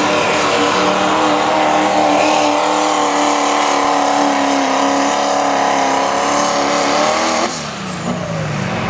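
Turbocharged diesel pickup engine running at full throttle under heavy load as the truck drags a pulling sled. About seven and a half seconds in, the engine suddenly drops off power, and a high turbo whine falls away as the pull ends.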